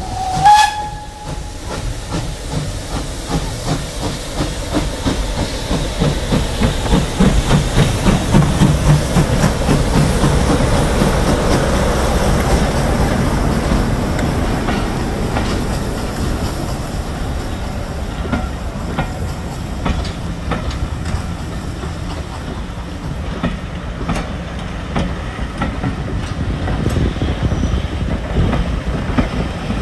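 Passenger train rolling past on a heritage line, its coach wheels clicking over the rail joints above a steady low rumble. A brief high tone sounds about half a second in.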